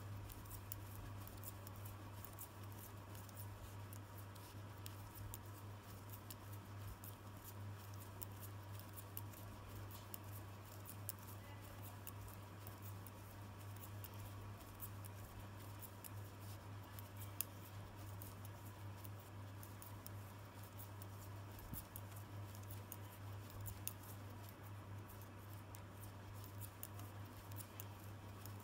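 Knitting needles clicking faintly and irregularly as plain knit stitches are worked, over a steady low hum.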